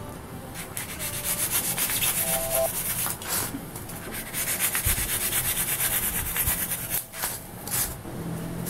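A small blade scraping and shaving a styrofoam cylinder round: a fast run of rasping scrapes with a couple of brief squeaks, pausing twice.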